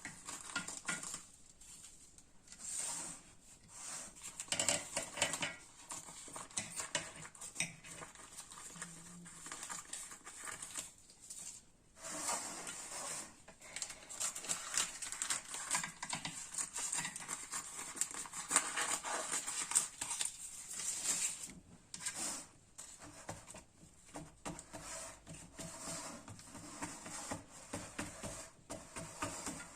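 Food being prepared by hand: irregular light taps, clicks and rustles of utensils, pastry and ingredients.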